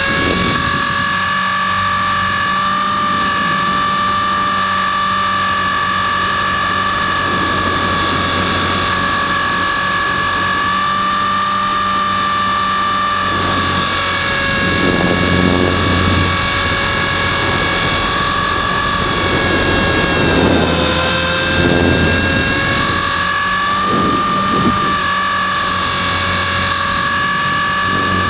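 Trex 450-class electric RC helicopter in flight, heard from a camera on its frame: a steady high motor and gear whine over rotor noise. The whine dips slightly in pitch and a low buffeting rises twice, near the middle and about three-quarters through, as the helicopter manoeuvres.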